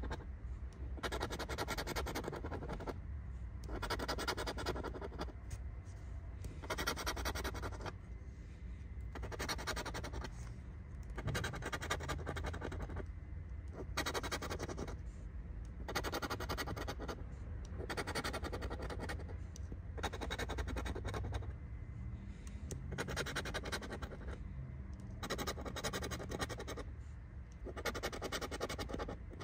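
Scratch-off lottery ticket being scraped with a small metal scratcher tool against cardboard: a dry rasping in repeated strokes, about one a second, as the coating comes off.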